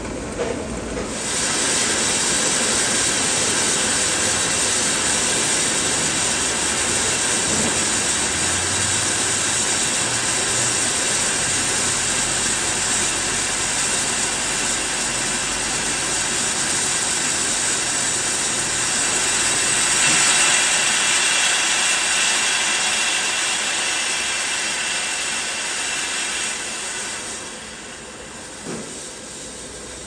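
Steam hissing steadily from a hand-opened valve and the fittings on the side of a 1923 ALCO 0-6-0 steam locomotive as it is fired up. The hiss starts about a second in, grows louder about two-thirds of the way through, eases briefly near the end, then picks up again.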